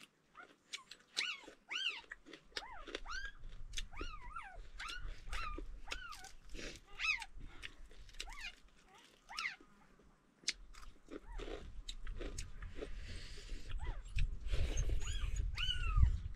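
A dog whining over and over in short, high cries that rise and fall, mixed with crisp crunching and chewing of fried paha frog.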